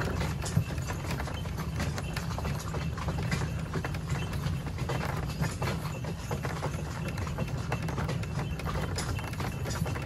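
Horse's hooves clip-clopping on a dirt and gravel lane, over the steady rumble and rattle of the horse-drawn cart's wheels.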